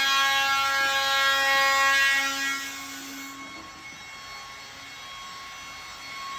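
Electric power saw running with a steady high whine, then dying away two to three seconds in, leaving a faint hum.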